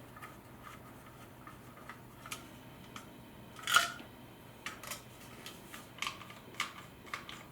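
Faint, scattered clicks and taps of a small screwdriver and plastic parts as a small screw is driven back into a Dyson V10 vacuum's handle, with one sharper click about four seconds in.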